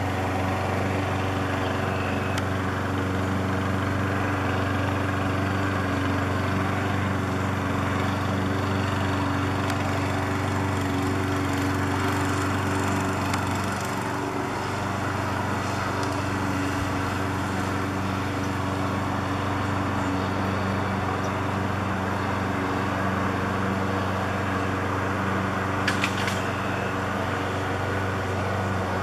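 A motor running at a steady speed, an even low hum that does not change; a brief clatter about three-quarters of the way through.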